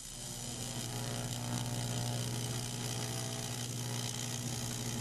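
AC TIG welding arc on thin aluminum, a steady buzz that grows slightly louder over the first second and then holds even, with a hiss over it.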